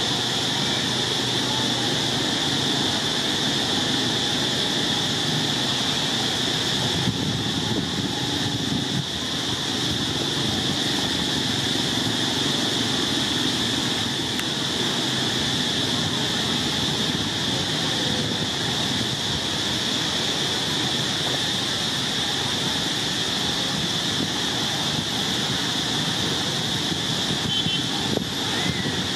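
Steady outdoor ambience: a constant high-pitched insect buzz over a low, even rumble.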